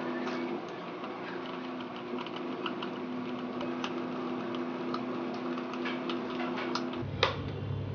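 Light, scattered clicks and taps of a small nut and bolt being fitted to fix a fan regulator into a switch board, with one louder click about seven seconds in, over a faint steady hum.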